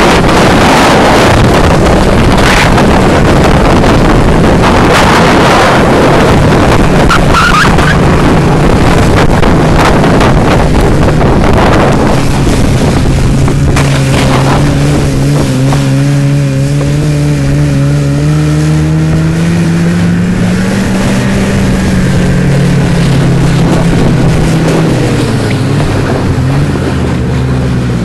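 Snowmobile engine running as it tows a snow tube, under heavy rushing wind and snow noise on the microphone that is loudest in the first half. In the second half the engine's note comes through clearly and its pitch rises and falls with the throttle.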